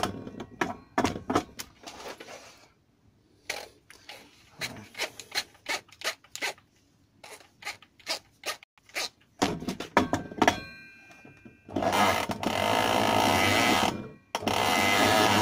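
Power drill spinning a circular saw's armature by its shaft cuts off at the start. Then comes a run of clicks and knocks as the parts are handled. Near the end the drill runs twice briefly, for about two seconds and then about a second.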